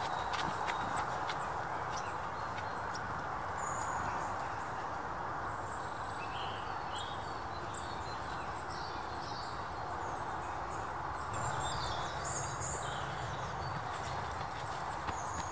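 Woodland birds chirping in short scattered phrases over a steady rushing background hiss, with a few sharp ticks near the start.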